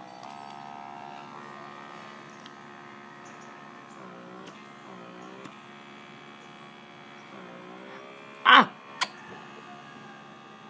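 Blackhead pore vacuum's small electric suction motor running at setting 3, a steady hum whose pitch dips briefly a few times. Two sharp, loud pops about eight and a half and nine seconds in.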